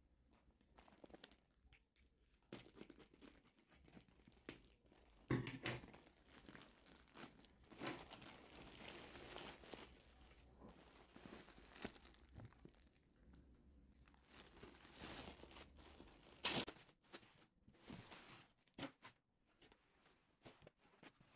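Plastic packaging bags crinkling and rustling as they are handled and torn open, in irregular bursts. Two sharp rips stand out, about five seconds in and again past the sixteen-second mark.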